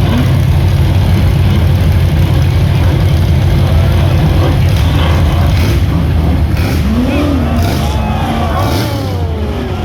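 Rock bouncer buggy engine running loud and hard, with pitch sweeps up and down in the last few seconds.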